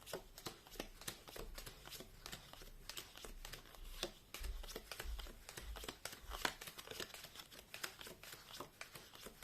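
Deck of cards being shuffled by hand: a faint run of irregular card flicks and rustles.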